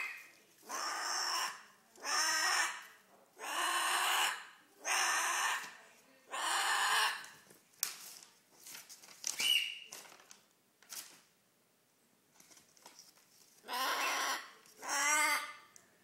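Umbrella cockatoo giving a series of loud squawks, about one a second, then going quiet for a few seconds before two more squawks near the end.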